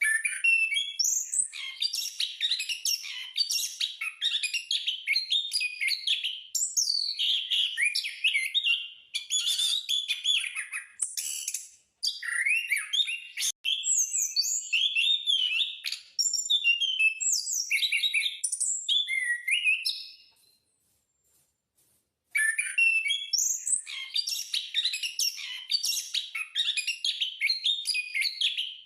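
An anis (punglor) ground thrush singing in full, vigorous song: long runs of rapid, varied whistled phrases. The song breaks off for about two seconds partway through, then resumes.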